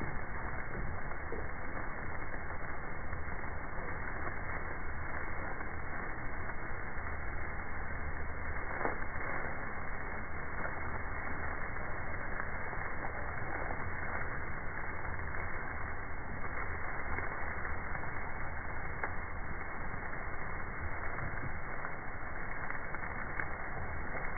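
NOVAG no-till seed drill row unit running through a mat of rolled cover-crop residue: a steady rushing crackle of dry stalks being crushed and cut by the discs and wheels, over a low steady hum from the tractor.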